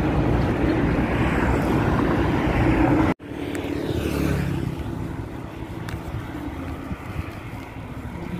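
Steady road traffic noise of passing vehicles. It cuts off abruptly about three seconds in, then carries on quieter.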